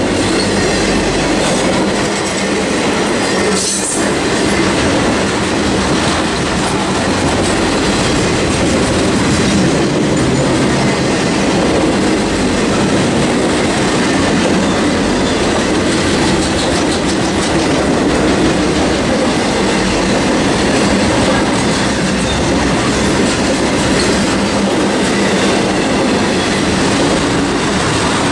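Intermodal freight train of double-stack well cars rolling past at close range: a steady rumble of steel wheels on rail with clickety-clack over the rail joints. There is a brief higher-pitched hiss about four seconds in.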